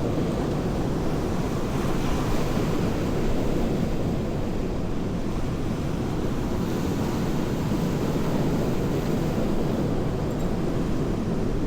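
Steady outdoor noise of wind on the microphone mixed with sea surf, with no distinct events.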